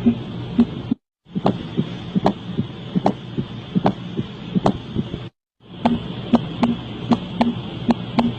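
Recorded heart sounds: short clips played one after another, cut by two brief silences. The middle clip has slow paired lub-dub beats about 0.8 s apart, and the last has quicker beats, all over a steady hiss.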